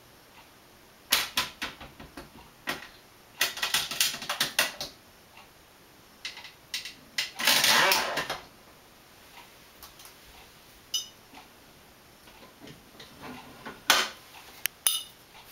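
Red floor-standing wine corker worked by hand: clusters of sharp metal clicks and rattles from its lever and jaws, then about seven seconds in a louder noisy push lasting about a second as the lever drives a cork into a wine bottle, and a few single clicks near the end.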